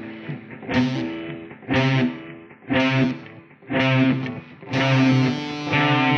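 Guitar strummed in chords about once a second. From about five seconds in, the last chord is held and rings on.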